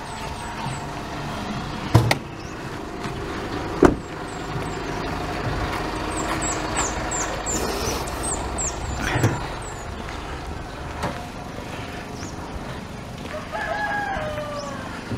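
A rooster crowing near the end, over small birds chirping in short high notes. Two sharp knocks sound about two and four seconds in.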